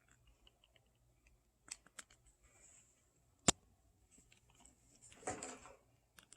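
Small clicks and handling sounds of a plastic figure being fitted onto its plastic display stand, with one sharp click about three and a half seconds in and a short rustle-scrape a little after five seconds.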